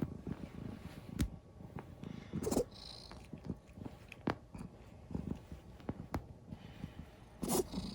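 Tortoiseshell cat purring, with a scattering of short sharp sounds and two louder, noisier bursts about two and a half and seven and a half seconds in.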